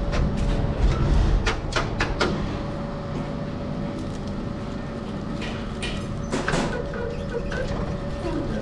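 Broom winding machine running with a steady low rumble and faint hum. Over it come sharp clicks and knocks, several in quick succession in the first two seconds and a few more about six seconds in, as the broomcorn straw and wooden handle are handled at the machine.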